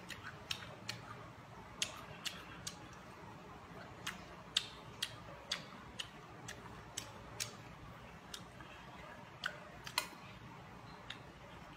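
Faint eating sounds: a string of short, sharp clicks at uneven intervals, roughly twenty of them, from a lime being eaten and a spoon worked in a glass bowl.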